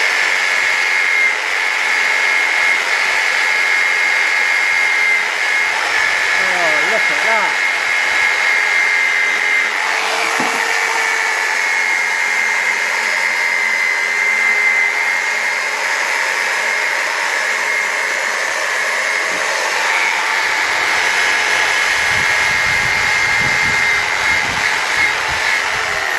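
Corded electric drill spinning a brass wire wheel pressed against hot cast iron, running steadily with a high whine. This is hot brassing, rubbing brass from the wheel onto the heated casting to leave a thin brass layer. The motor starts to wind down at the very end.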